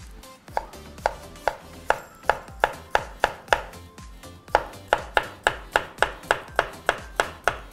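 Kitchen knife slicing a cucumber on a wooden cutting board: a steady run of knocks, about three a second, with a short pause about halfway through.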